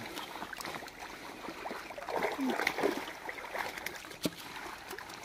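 Fish thrashing in a hand-hauled net in shallow pond water: a rapid, irregular run of splashes and slaps against sloshing water, busiest about two seconds in.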